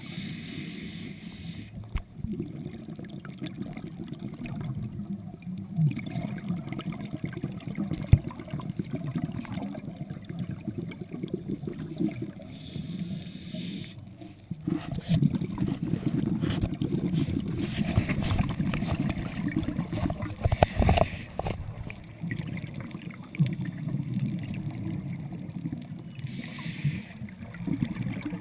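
Underwater noise on a scuba diver's camera: a steady low rumble with crackling, and a hissing, bubbling burst every six seconds or so from the diver's regulator breathing.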